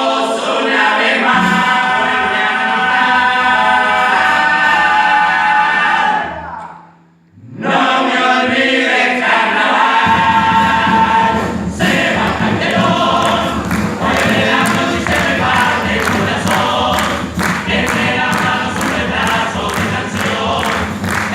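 Vocal group singing in close harmony, holding long chords, breaking off briefly about a third of the way in, then coming back in with a fuller low part and a steady beat of sharp hits.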